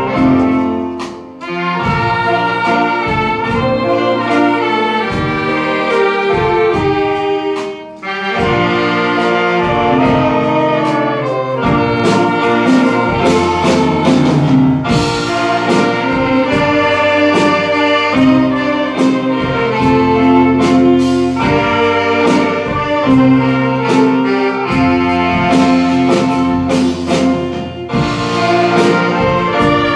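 Saxophone ensemble playing a slow melody in several parts over a steady beat, with short breaks between phrases about a second in and about eight seconds in.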